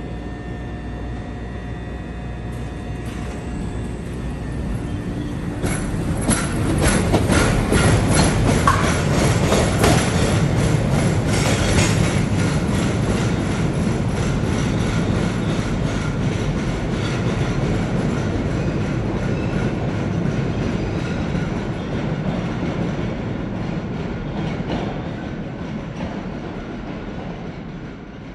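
CTA Budd 2600-series "L" train pulling out of a subway station. A steady hum with faint whining tones comes first. About six seconds in, the wheels start a rapid clickety-clack over the rail joints, loudest for several seconds, then fading as the train moves away down the tunnel.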